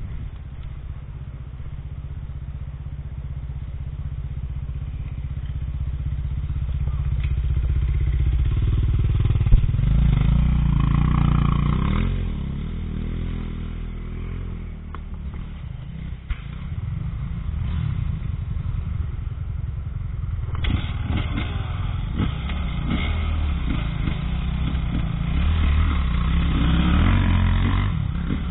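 Husqvarna TE300 two-stroke enduro motorcycle running along a dirt forest trail, the engine note building for the first ten seconds or so, easing off, then rising and falling with the throttle. In the second half it is rougher, with rattles and knocks from the bike over uneven ground.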